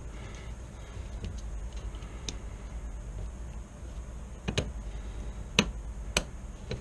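Small metal gun parts of a Marlin Model 9 carbine's trigger group clicking and tapping as they are worked into line by hand. A few sharp clicks, most of them in the second half, over a low steady hum.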